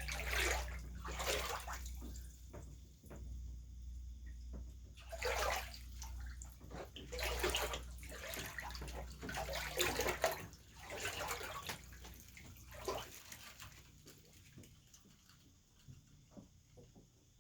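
Water sloshing and splashing in about half a dozen irregular bursts in a flooded basement, growing fainter near the end. Under it runs a low steady hum that stops about two-thirds of the way through.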